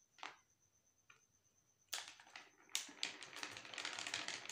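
Paper packet crinkling and rustling as talcum powder is tipped out of it into a glass: a couple of faint clicks, then from about two seconds in a soft, continuous run of small crackles.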